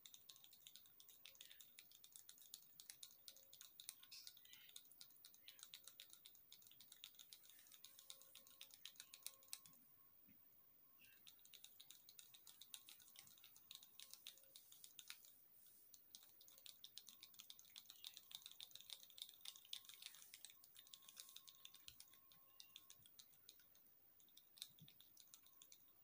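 Faint, rapid clicking and tapping of a plastic syringe stirring liquid medicine into water in a small plastic cup, the tip knocking against the cup's sides, with a short lull about ten seconds in.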